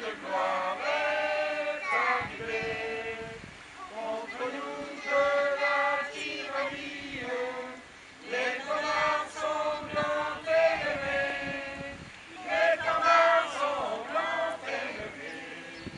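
A group of children singing a song together, in phrases with short breaks about every four seconds.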